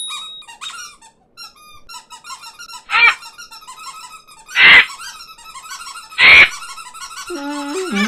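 Cartoon bird vocal effects: a flock of small birds cheeping and chattering in quick squeaky calls, cut by three loud, short squawks about a second and a half apart. Near the end a deeper bird voice joins in, wavering up and down in pitch.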